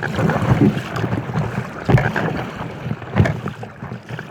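Wind buffeting the microphone over water splashing around an inflatable kayak, with a short splash or knock about every second or so.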